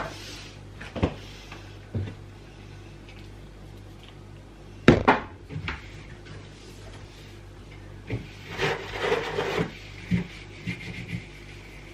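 Household items being handled during fridge cleaning: a few knocks and clatters, the loudest about five seconds in, then a stretch of rubbing or scraping, over a steady low hum.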